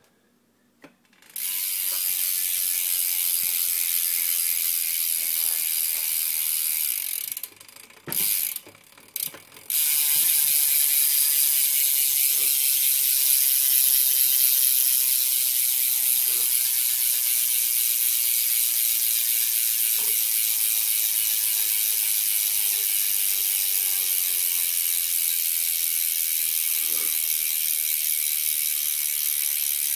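Loud ratcheting buzz of a BMX rear wheel's hub as the wheel spins, its pawls clicking too fast to count. It starts about a second in, stops around seven seconds, comes back in a few short spurts, then runs steadily from about ten seconds on.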